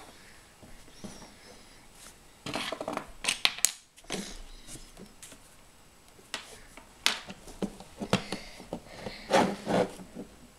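Plastic LEGO bricks being handled and pressed together on a tabletop: scattered small clicks and rattles, busiest about two to four seconds in and again near the end.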